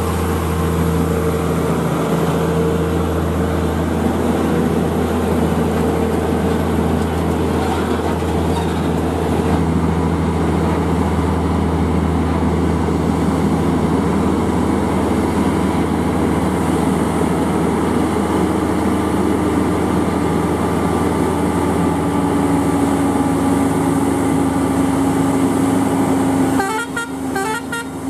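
Heavy diesel truck engine roaring under load on a climb, a loud steady low drone whose pitch sinks slowly in the second half. Near the end the sound changes abruptly to lighter noise with short horn toots.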